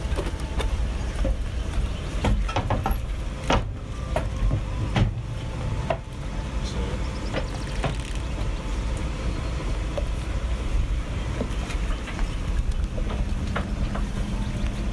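A boat's inboard engine idling at the dock, a steady low rumble. Several sharp knocks sound over it.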